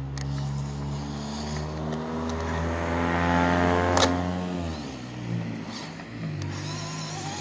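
WPL C24 RC truck's upgraded electric motor and geared transfer case whining as it drives; the pitch climbs for about four seconds as it speeds up, then drops as it slows. A sharp click comes near the peak.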